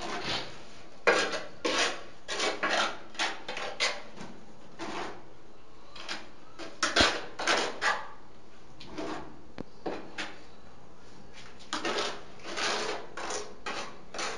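Steel trowel scraping tile adhesive from a bucket and spreading it on the back of a ceramic tile: a run of short, irregular scrapes with brief pauses between them.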